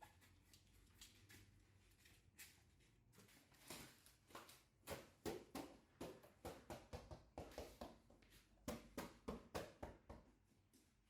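Faint quick taps and knocks from floor mats being handled and laid: sparse at first, then several a second from about a third of the way in until near the end.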